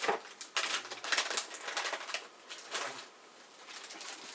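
A run of irregular clicks and rustles from PC fan and hub parts being handled, several short strokes close together in the first half.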